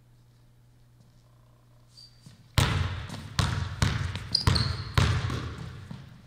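Basketball dribbled hard on a hardwood gym floor: about six sharp bounces starting about two and a half seconds in, each ringing out in the echoing gym, with a brief shoe squeak on the court in the middle. Before the dribbling only a faint low hum.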